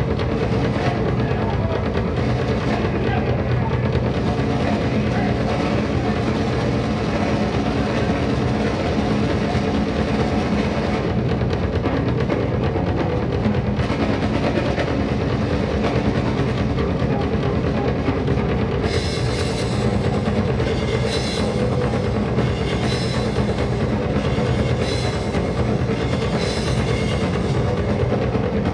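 Continuous loud drumming music, a dense rolling drum texture. Sharper, brighter hits join in about two-thirds of the way through.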